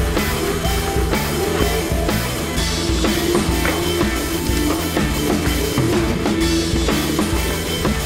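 Background music with drums and a steady beat.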